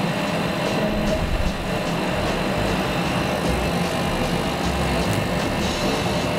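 Laser cutter running while it cuts a pattern in paper: a steady machine hum from its fans and air, with the head's drive motors shifting in note every half second or so as it traces the cut.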